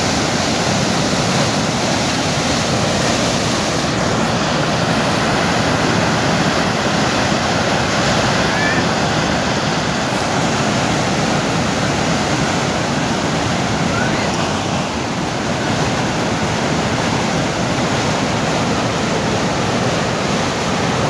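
Torrent of water gushing from a barrage outlet and crashing over boulders into a rocky river: a steady, loud rush.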